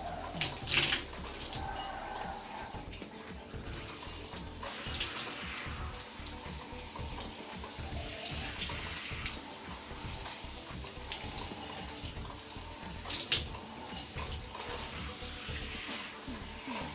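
Water spraying from a filtered shower head and spattering, with louder splashes a few times: about a second in, around the middle and again near the end.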